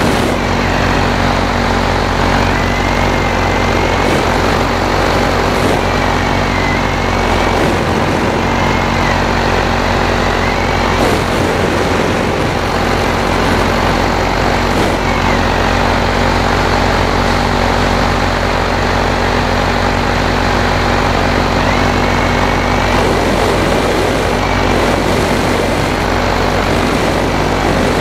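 Paramotor engine and propeller running steadily in flight, a constant drone with small rises and falls in pitch now and then.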